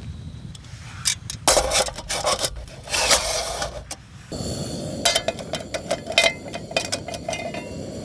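Metal cookware scraping and clattering as aluminium pots are fitted into a perforated stove windscreen over a gas canister burner. About four seconds in, a steady low rush begins, followed by a run of light metallic clicks and clinks.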